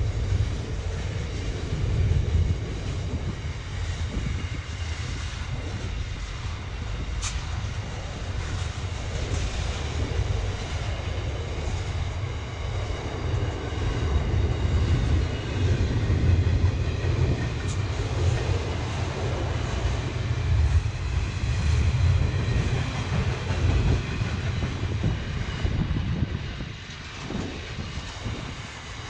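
Intermodal container freight train rolling past: a steady low rumble of the wagons on the rails, with faint high ringing tones and two sharp clicks, about seven and eighteen seconds in.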